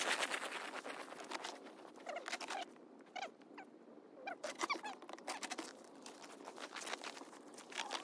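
Footsteps crunching and squeaking in cold, packed snow, coming in irregular clusters, mixed with rustling from handling the nylon tent.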